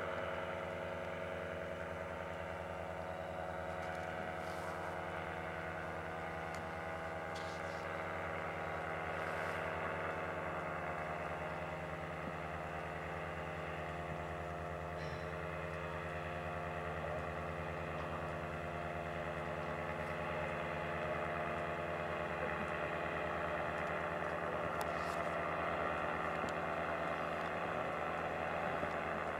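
Paramotor engine running steadily at a constant pitch: an even engine drone.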